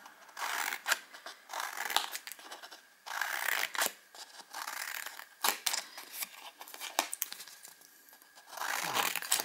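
Scissors cutting thin card in a series of irregular snips, with the card rustling as it is handled between cuts.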